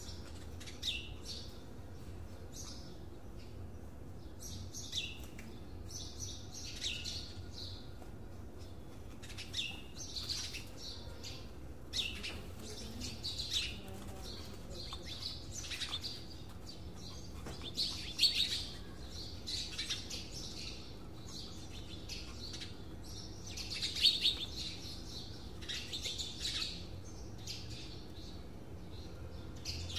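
Small birds chirping in short, high calls, coming irregularly and often, over a faint steady low rumble.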